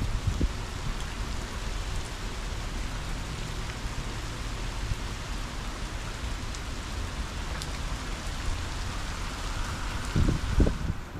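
Heavy rain falling steadily in strong wind, with gusts buffeting the microphone briefly at the start and more loudly about ten seconds in.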